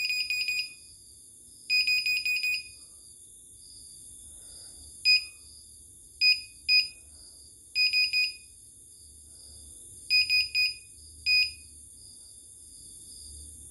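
Key-press beeps from a CNY portable embroidery machine's control panel as its buttons are pressed to scroll the design file list. The beeps are short and high, some single and some in quick runs of three to five.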